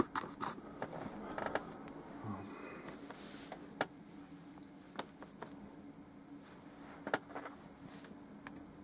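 Quiet room with a steady low hum and a few faint, scattered clicks and taps from an oil painter handling his brush and palette.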